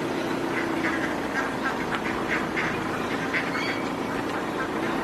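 A chorus of short, repeated bird calls, many in quick succession, over a steady low hum.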